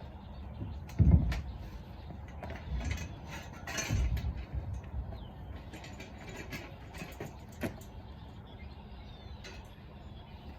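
Clatter of a plastic tailgate salt spreader being handled and shifted, with a loud low thump about a second in and a burst of knocks and rattles around four seconds, then scattered small clicks.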